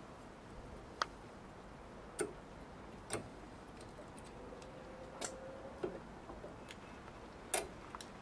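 Irregular light metallic clicks and clinks, about seven of them with uneven gaps, from brake pads, clips and tools being handled during a brake pad change.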